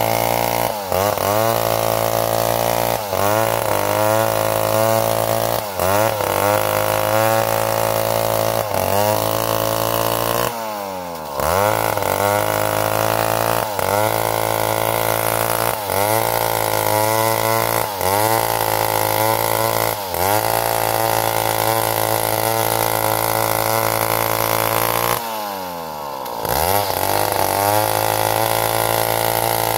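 Stihl chainsaw's two-stroke engine running at high revs while cutting through timber. The pitch dips briefly and recovers about every two seconds as the chain loads up. Twice, about ten seconds in and again near the end, the engine drops back toward idle and then revs up again.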